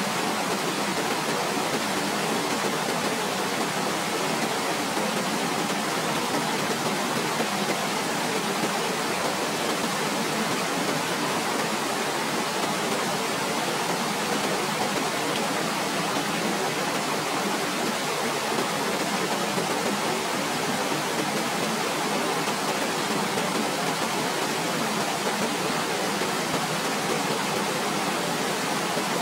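Waterfall: a steady, unbroken rush of falling water, with little deep rumble.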